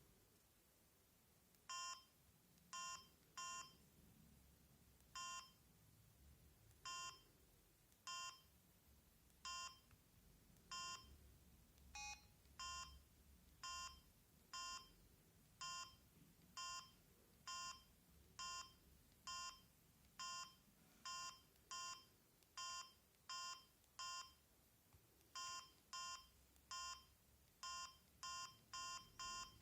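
Samsung SGH-M600 mobile phone's keypad beeps as its keys are pressed to move through the menus. The short, identical electronic beeps come at uneven gaps and get quicker near the end, with one differently pitched beep about twelve seconds in.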